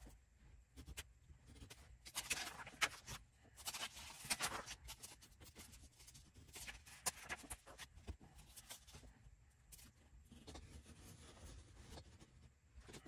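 X-Acto craft knife scoring through a few book pages at a time, with faint scratchy strokes of the blade on paper. Two longer strokes come about two and four seconds in, amid scattered light clicks and taps.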